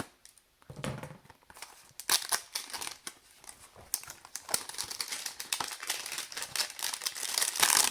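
A cardboard hanger box of trading cards being torn open by hand: irregular crinkling and tearing of its packaging, busiest from about two seconds in and loudest near the end.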